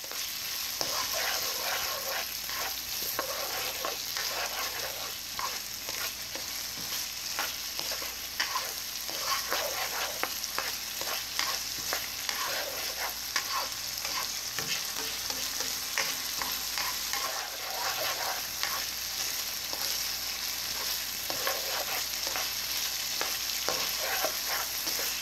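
Diced meat and frozen mixed vegetables sizzling in a hot wok while a spatula stirs them, with many short scrapes and taps of the spatula against the pan over the steady sizzle.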